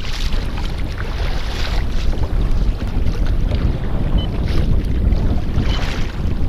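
Wind rumbling on the microphone over a kayak on open water, with water washing against the hull in soft swells.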